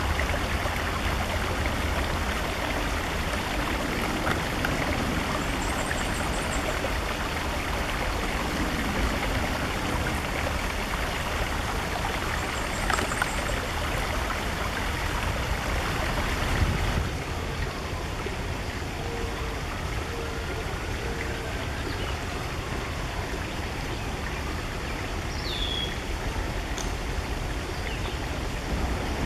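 Steady rushing of a stream, with a few faint high-pitched bird songs over it: short trills about six and thirteen seconds in, and a brief call near the end. The rush turns duller about seventeen seconds in.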